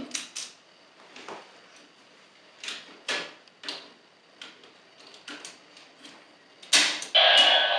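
Hard plastic clicking and knocking as a DX Gabutyra toy and its Zyudenchi battery piece are handled, a dozen or so separate clicks. Near the end a couple of loud clacks are followed by a loud electronic sound effect from the toy's speaker.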